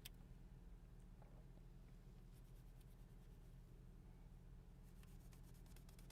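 Near silence: a low steady hum with faint scratchy rubbing, in a short cluster about two and a half seconds in and a denser one near the end.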